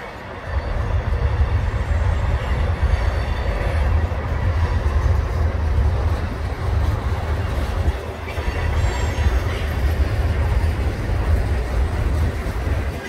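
Freight train of tank cars rolling steadily past, steel wheels on rail with a heavy low rumble and a faint thin squeal from the wheels.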